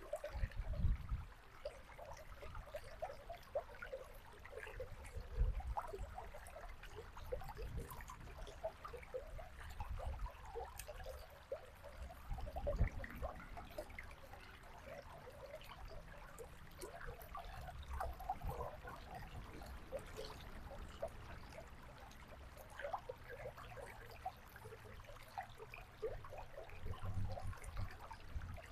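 A small river trickling and babbling over stones, a steady mass of small splashes and gurgles, with a few brief low rumbles.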